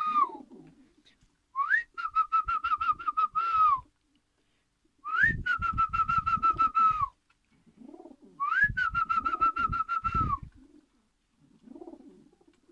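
A person whistling, probably to call pigeons into the loft, in three repeated calls. Each call is a quick upward sweep into a warbling held note lasting about two seconds. Pigeons coo faintly in the gaps.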